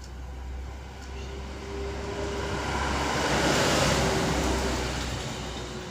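A vehicle passing by, its noise swelling to a peak about four seconds in and then fading away.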